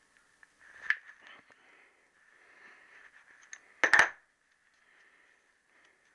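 Metal hand tools and small steel parts clinking on a workbench: a sharp clink about a second in and a louder double clink near four seconds, with faint handling and rubbing noise between.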